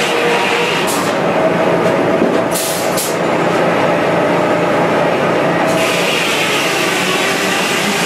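Circular sawmill running steadily, with the carriage carrying a log past the blade. A few short high hisses come between about one and three seconds in.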